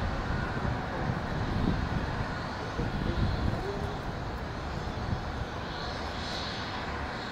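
Freight train of container flatcars rolling past on a curve: a steady rumble of steel wheels on the rails with uneven low knocks, and a brief higher hiss about six seconds in.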